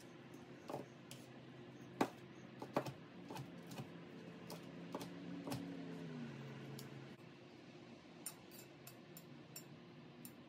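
Chef's knife cutting broiled chicken thighs on a plastic cutting board: scattered sharp knocks as the blade meets the board, then a quick run of light clicks near the end, over a steady low hum.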